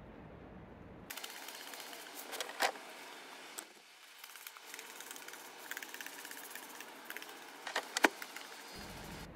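Hand trigger spray bottle squirting mold stain remover several times in quick succession near the end, over a faint steady hiss. A single short sharp click comes about two and a half seconds in.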